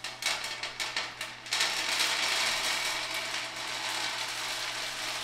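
LECA clay pebbles being poured out: a few separate clicks and knocks, then a continuous clattering rush of pebbles for a few seconds, easing off near the end.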